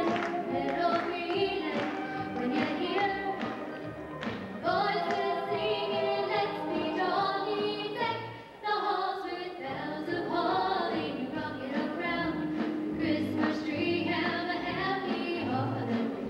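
A woman singing solo into a handheld microphone over instrumental backing with a beat. The singing breaks off briefly a little past halfway, then picks up again.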